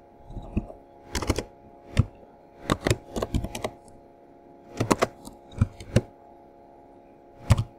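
Computer keyboard keystrokes, typed in short irregular clusters of a few sharp clicks with pauses of about a second between them.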